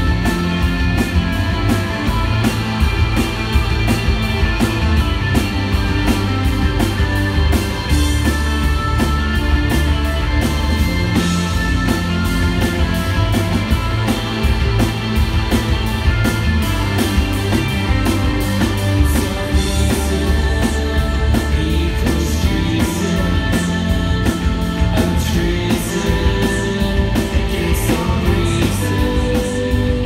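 Live rock band playing a song loudly, with electric guitars over a steady drum beat and bass.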